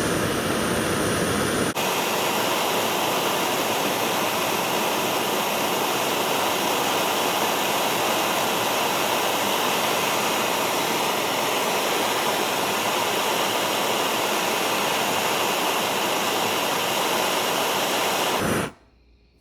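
Gas torch flame hissing steadily while it heats a miter saw's bent locking pin so the pin can be bent back straight. The hiss cuts off abruptly near the end.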